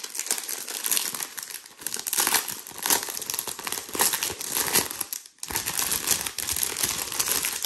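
Plastic wrapping around a diamond painting canvas crinkling and crackling as it is handled and pulled open by hand, with a brief pause about five and a half seconds in.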